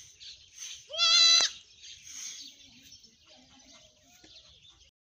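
Goat bleating: one loud, quavering bleat about a second in, over a faint high hiss, with a few much fainter calls after it.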